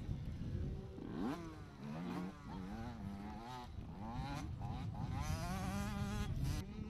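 Motocross dirt bike engine revving up and dropping back again and again as the bike rides past, with a high buzzing tone.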